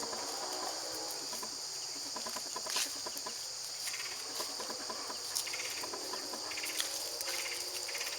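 Steady, high-pitched chorus of insects trilling without a break, with faint scattered clicks and rustles.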